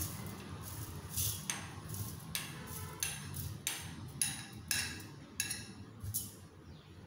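A steel spoon scraping and clinking against a glass bowl as roasted flattened rice (aval) is tipped out into a steel mixer-grinder jar: a run of short, sharp clinks and scrapes, about two a second.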